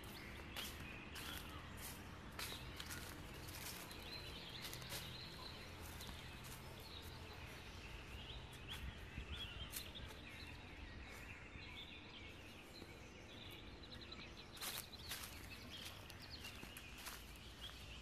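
Faint birds chirping and twittering, with scattered sharp crackles of dry fallen leaves underfoot, the crackles thickest near the end.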